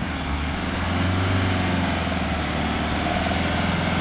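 4x4 engine running hard under load, trying to drive the vehicle out of soft sand where it is bogged.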